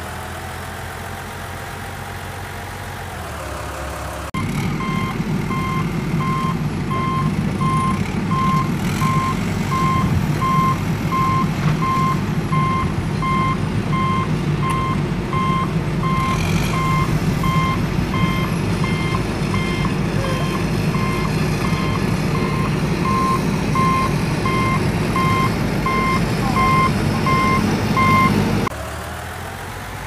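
Engine running at a varying pitch, then a heavy truck engine rumbling with a reversing alarm sounding evenly spaced beeps from about four seconds in until it cuts off shortly before the end.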